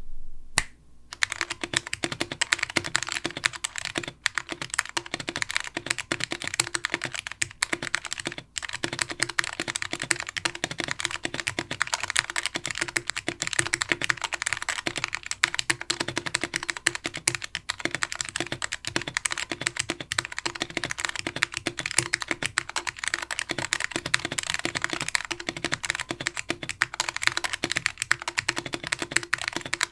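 Continuous fast typing on a plateless custom mechanical keyboard with Alps SKCM Brown switches and DCS keycaps, dense key clacks starting about a second in, with brief pauses now and then.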